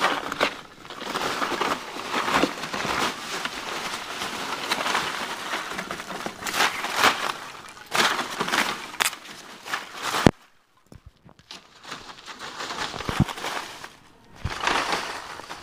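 Foam packing peanuts rustling, squeaking and clicking against each other as a ferret burrows through a box full of them. About ten seconds in, a sharp click is followed by a short lull.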